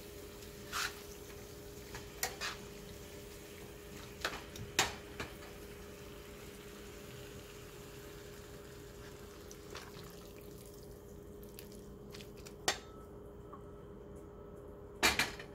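Metal tongs tossing fettuccine in a thick sauce in a nonstick frying pan, with a handful of sharp clicks and taps of metal on the pan spread out, a cluster near the end the loudest. Under them runs a steady hiss with a hum.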